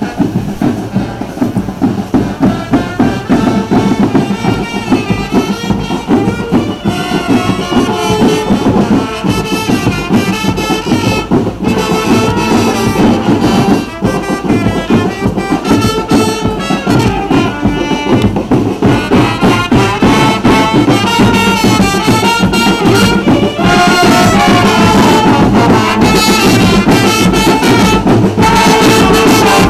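Marching show band of saxophones, trumpets, trombones and drums playing a lively tune, with the brass coming through louder in the second half.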